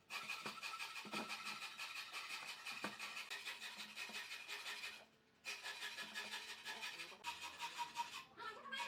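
Hand tool rubbing or rasping on wood in quick repeated strokes, broken by a brief silence about five seconds in and again near the end.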